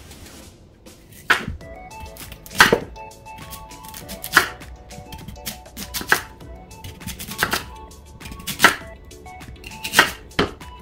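Kitchen knife slicing a whole Korean radish into thick rounds on a wooden cutting board: each cut ends in a sharp knock of the blade on the board, about eight cuts, roughly one every second and a half.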